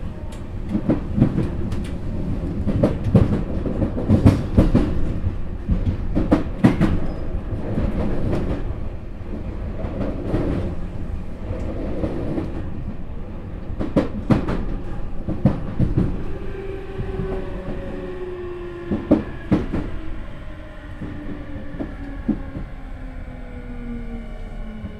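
Tokyu 5000 series electric train heard from inside the car: wheels clatter over rail joints above a low running rumble. About two-thirds through, the Hitachi IGBT inverter and traction motors set up a whine of several tones that fall steadily in pitch as the train brakes for the station.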